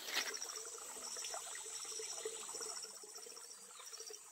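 Faint wet-forest ambience: insects chirping in short, repeated high pulses over a steady high insect drone, with a faint trickle of running water.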